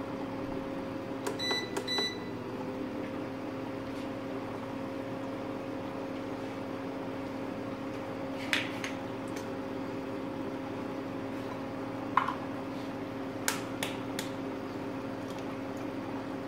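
Steady electric hum of a kitchen appliance running, with a couple of held tones. About a second and a half in, a short run of electronic beeps sounds, and just after it the hum's pitch drops slightly, as when a setting is changed. A few faint clicks come later.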